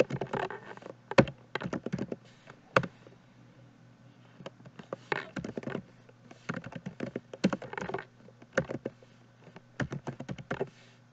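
Typing on a computer keyboard: irregular runs of quick keystrokes, broken by short pauses and a few single, sharper key taps. A command is being typed into a terminal to compile and then run a program.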